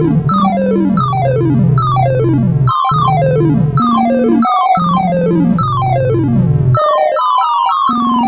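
Synthesized tones from a sorting-algorithm sonification of insertion sort, each tone pitched to an array value being compared. Quick runs of short beeps step downward in pitch as each element is shifted down into place, over a held low tone, with about eight runs a second or so apart.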